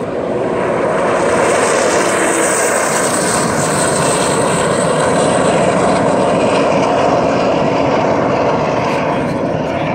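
Racing jet boat's engine running flat out as the boat speeds past. It grows louder over the first second, holds steady, and eases a little near the end.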